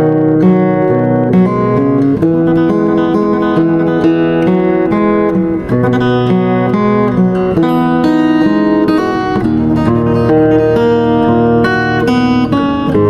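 Kama K4114C 41-inch solid-top acoustic guitar being played: picked notes and chords over a moving bass line, each note ringing on into the next.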